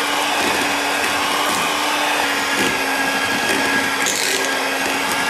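Electric hand mixer running steadily, with a constant motor whine, its beaters churning butter, margarine and egg yolks in a glass bowl.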